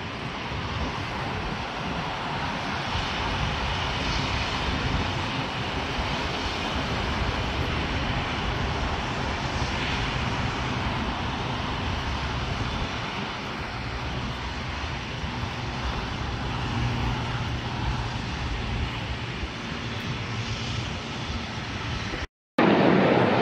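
Distant airliner jet engines running, a steady rumble with a hiss. It cuts off suddenly near the end and gives way to a louder rush of noise.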